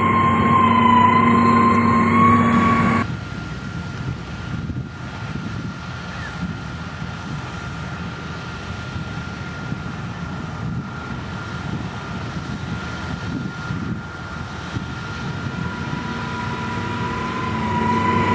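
Heavy road-construction machinery running: a steady engine sound with a high, steady whine for about three seconds, then a sudden change to a quieter low engine rumble, with the whine coming back near the end.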